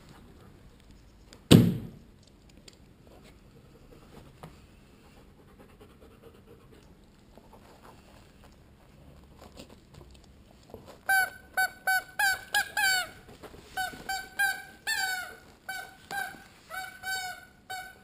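A thump about a second and a half in, then, over the last seven seconds, a rapid series of short, high squeaks, two or three a second, each dropping in pitch at its end, from a dog chewing a squeaky toy.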